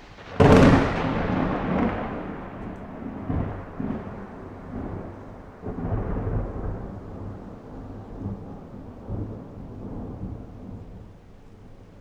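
A close thunderclap: a sudden sharp crack about half a second in, then a long rolling rumble that swells again several times and slowly dies away.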